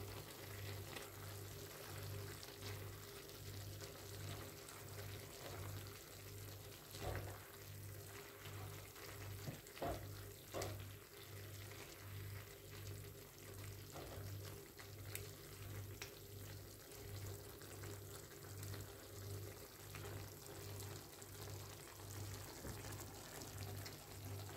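Beef and vegetable sauté simmering faintly in a frying pan while a spatula stirs it, with a few light knocks against the pan. A low hum pulses steadily underneath, about one and a half times a second.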